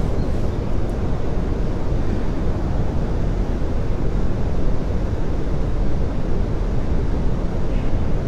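Steady rumbling noise, heaviest in the low end and unbroken, with no voice over it.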